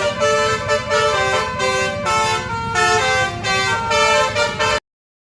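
Blue Star tour bus's telolet (basuri) multi-tone musical horn playing a tune of short stepped notes over a low rumble. It cuts off suddenly near the end.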